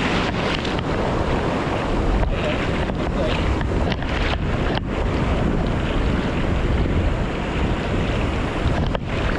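Strong wind buffeting the microphone over the steady rush of breaking surf, with a heavy low rumble and a few brief dropouts.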